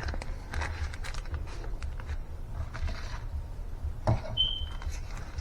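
Zipper-seal plastic freezer bag being pressed shut and handled: faint scattered clicks and rustles of plastic. About four seconds in comes a sharper click and a brief high tone.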